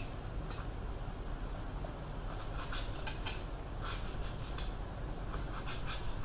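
Kitchen knife slicing raw beef on a cutting board: irregular light taps of the blade meeting the board, some in quick runs, over a steady low hum.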